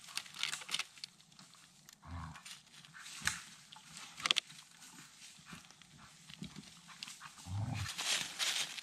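Border collie mouthing and gnawing a fallen branch: sharp clicks of teeth on wood, twice giving a short low growl, with dry leaves and pine needles rustling under its paws as it moves along near the end.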